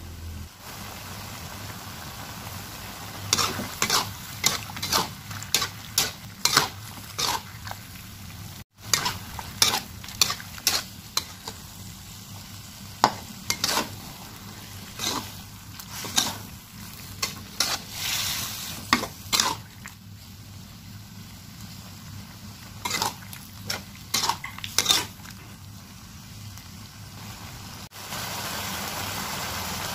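Cuttlefish sizzling in sambal in a pan, with a spatula scraping and clacking against the pan in many short strokes as it is stirred. The stirring stops about 25 seconds in, leaving a steady sizzle that grows louder near the end.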